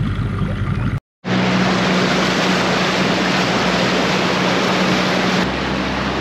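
Small boat's outboard motor running steadily underway, under a heavy rush of wind and water noise. The sound drops out for a moment about a second in, and the motor's hum falls away about five seconds in while the rush goes on.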